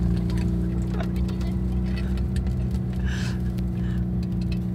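Citroën Acadiane van's air-cooled flat-twin engine running at a steady speed, heard from inside the rear of the van, with small clicks and rattles.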